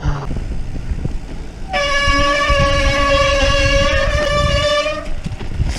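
Mountain bike brake squealing: one steady, high-pitched squeal with many overtones starts nearly two seconds in and holds for about three seconds, over the rumble of tyres on a dirt trail.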